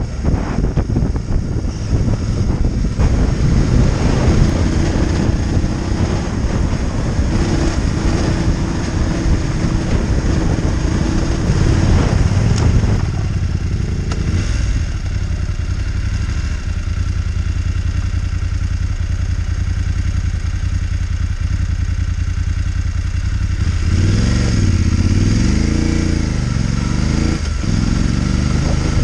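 Motorcycle engine running while riding, heard from the bike with wind noise over it. About 13 seconds in the sound changes abruptly to a steadier engine note at lower speed. Near the end the note rises and falls as the throttle is opened and closed.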